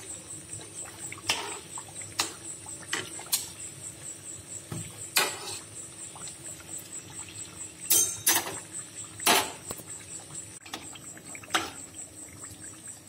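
Kachoris deep-frying in hot oil in a kadhai over a slow-to-medium flame: a low sizzle broken by sharp clicks and pops every second or so, from spattering oil and a slotted spoon knocking against the pan, the loudest about eight and nine seconds in.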